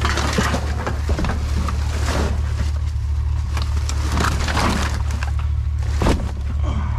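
Crunching and scraping of debris as junk is pulled and handled, in several rough bursts with a sharp knock about six seconds in, over a steady low hum.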